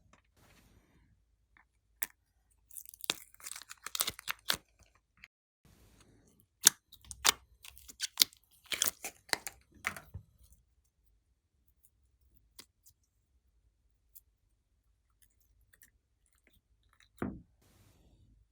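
Glossy slime being squeezed and worked by hand, making bursts of sharp, wet clicks and crackles as air pockets pop, then a few scattered ticks and one deeper pop near the end.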